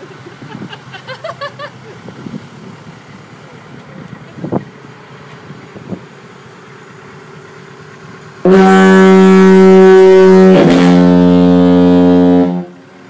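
Early-1900s compressed-air foghorn sounding one loud, steady blast of about four seconds, starting near the end after a quiet stretch. Its pitch drops slightly partway through, and then it cuts off.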